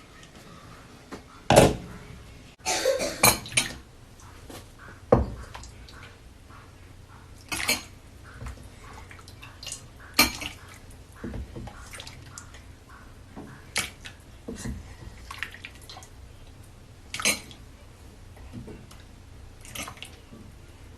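Kitchen pots, lids and utensils clattering: about a dozen separate knocks and clinks spread out, with a quick run of them about three seconds in and the loudest knock about one and a half seconds in.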